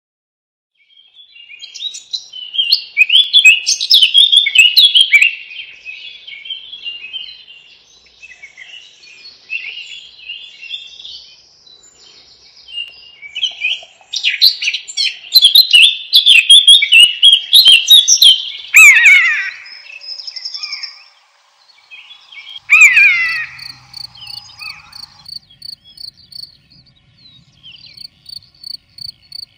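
Several songbirds singing in rapid, warbling phrases, loudest in two spells near the start and the middle, with a downward-gliding call near the middle. From about three-quarters of the way in, an insect chirps in a steady, even pulse several times a second.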